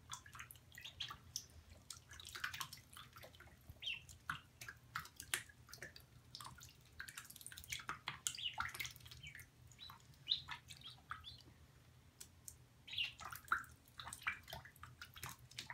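Five-day-old domestic ducklings (Pekin, Khaki Campbell and Duclair) peeping on and off, mixed with small drips and splashes from their paddling on a wet towel in a bathtub.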